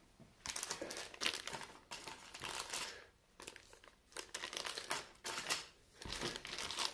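Clear plastic bags of dice crinkling as they are lifted and handled, in irregular spells with short pauses between them.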